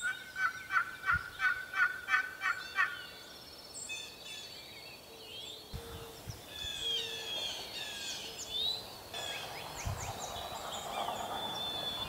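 Wild turkey calling: a run of about a dozen evenly spaced notes over the first three seconds. Songbirds sing in the background.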